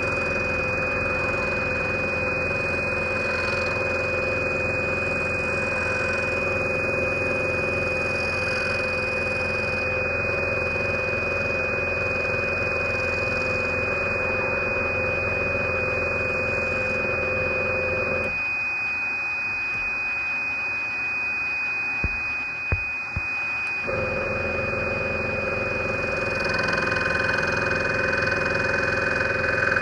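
Scroller 800 large scroll saw running, its reciprocating fine blade cutting wood, with a steady hum and a constant high whine. About two-thirds of the way in the low hum drops away for a few seconds, with a couple of short knocks, then returns.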